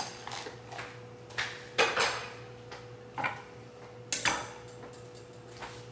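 Kitchenware being handled: a string of separate clinks and knocks, roughly one a second, as utensils and dishes are picked up and set down. A faint steady hum runs underneath.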